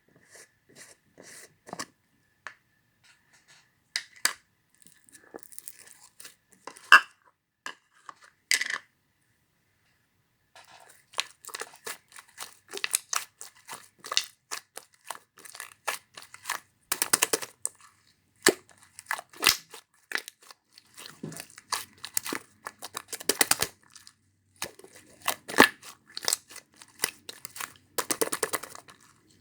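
Slime being squeezed, folded and stretched by hand, giving runs of crackling clicks and pops, with a brief pause about a third of the way in and another near the end.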